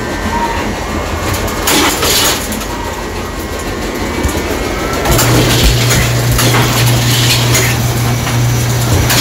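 Egg packing machine running with a rattling mechanical clatter; a steady low hum joins about five seconds in.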